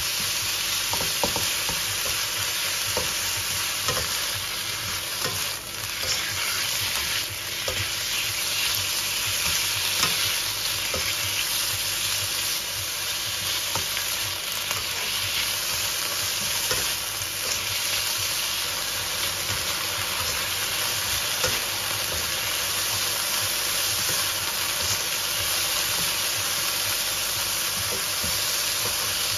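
Sliced chicken breast sizzling steadily in hot oil in a nonstick wok, stir-fried with a plastic slotted spatula that scrapes and taps against the pan in short scattered clicks.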